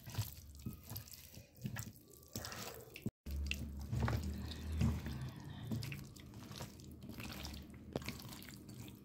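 A hand squishing and turning chicken pieces in a wet spice-and-oil marinade in a steel bowl: irregular wet squelches and light clicks. The sound drops out for a moment about three seconds in.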